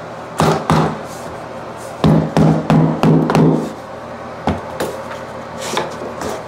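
Rubber mallet striking a tapping block to knock a vinyl plank into its click-lock joint: two taps, then a quick run of about six taps roughly three a second, and a few lighter ones after. The plank is being driven home under a shower lip where it is hard to lift into place.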